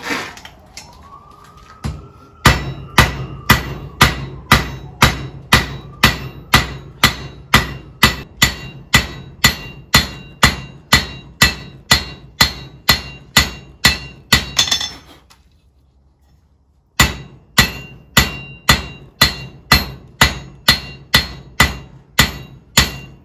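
Blacksmith's hand hammer striking a red-hot rebar shaft on the anvil face, steady blows about two and a half a second, each with a short metallic ring. The hammering stops for a second or two about halfway, then resumes at the same pace.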